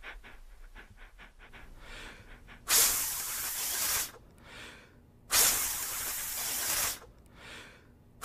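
A small whistle blown hard twice, giving no tone, only a rush of breath like a hiss; each blow lasts over a second, and a third starts at the very end. The whistle seems broken.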